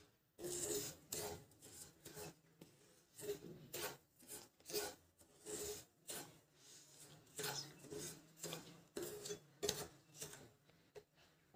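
Wooden spatula scraping and stirring semolina as it roasts in ghee in a nonstick kadhai: a faint series of irregular gritty scrapes, about one or two a second.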